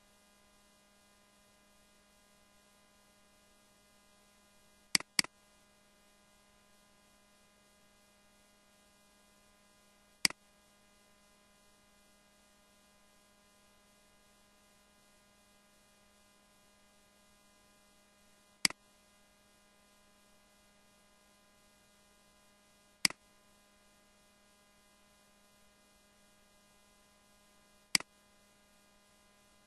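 Computer mouse clicking: a quick double click about five seconds in, then single clicks spread out every few seconds, over a faint steady electrical hum.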